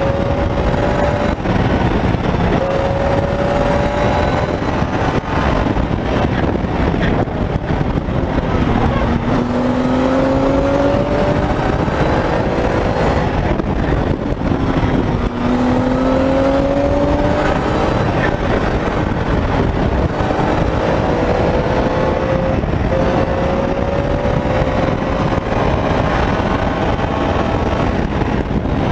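Motorcycle engine running hard at highway speed, its pitch climbing slowly in several long stretches with breaks between as the bike accelerates, under heavy wind rushing over the microphone.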